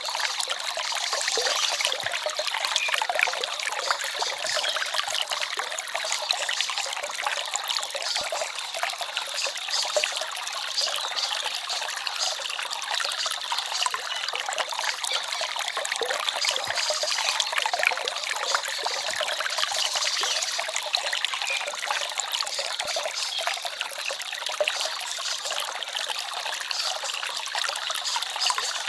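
Small forest stream babbling and trickling steadily over stones: a continuous splashy patter with little bass.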